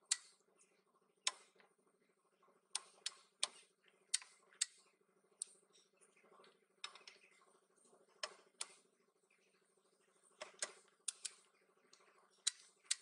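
Sharp metallic clicks from a YATO YT-0761 click-type torque wrench and its socket on wheel bolts, the wrench clicking off at its set torque and the socket knocking onto the bolt heads. They come singly and in quick pairs, roughly every second, over a faint steady hum.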